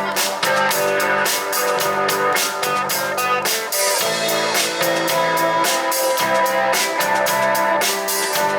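Live rock band playing an instrumental passage: electric guitars holding chords over a drum kit keeping a steady beat.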